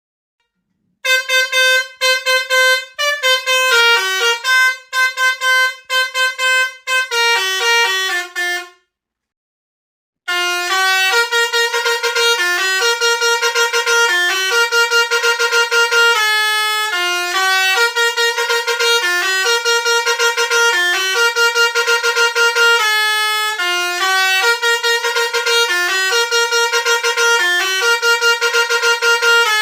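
Indonesian 'telolet' basuri musical bus horn playing a tune of quick changing notes. It starts about a second in, stops for about a second and a half around nine seconds in, then plays on.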